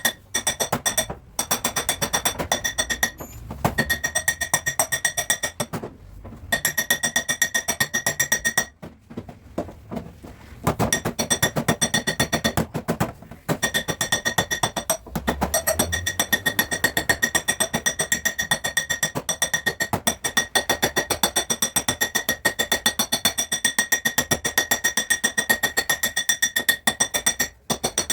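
Rapid, even hammer taps on a Jaguar's steel body panel, the sheet metal ringing with each blow as it is smoothed and the dent worked down, stopping briefly now and then.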